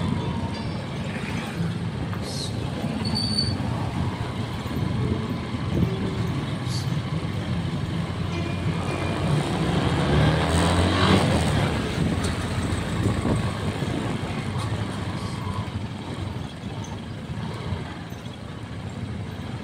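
Motorcycle engine running at low speed in traffic, with road and traffic noise around it; the sound swells about ten seconds in, then eases.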